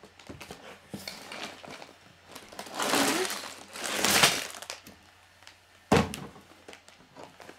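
Sealed plastic bags of Lego Technic pieces being tipped out of a cardboard box onto a wooden table: crinkling plastic and rattling loose parts, loudest in two swells in the middle, then a single thud about six seconds in.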